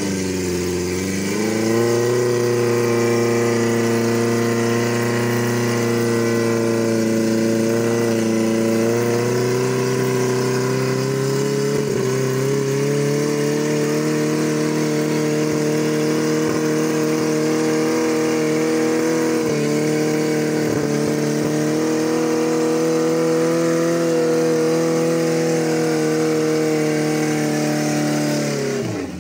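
Off-road 4x4's engine held at high, steady revs under heavy load as the vehicle struggles up a slippery mud slope. The pitch dips briefly about a second in, then holds nearly level with small wavers.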